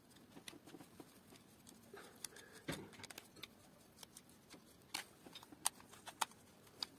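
Faint clicks and scrapes of a screwdriver turning out the screws of an electric drill's plastic housing, with the drill body being handled. A few sharper clicks come in the second half.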